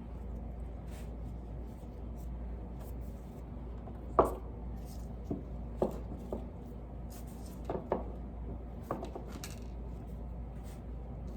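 Light knocks and clatters of soap molds and small hard props being set down and shifted on a work surface to prop the molds at an angle, about eight knocks in all, the loudest about four seconds in. A steady low hum runs underneath.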